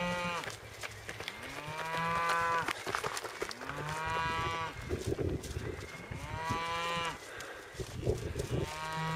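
Cattle mooing, a run of about four similar calls, each a bit over a second long and rising then falling, coming roughly every two seconds.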